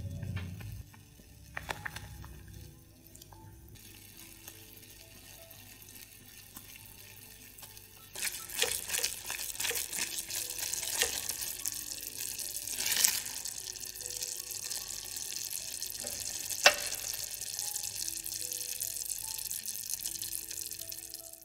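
Milk-and-cheese sauce in a saucepan being stirred with a silicone spatula while it simmers. From about eight seconds in there is a loud wet sloshing and bubbling noise full of small pops and clicks. Soft background music plays under it.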